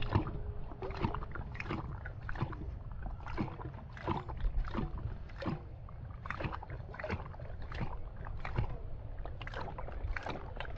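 A dog lapping water from a metal bowl, with short wet splashing laps about two a second.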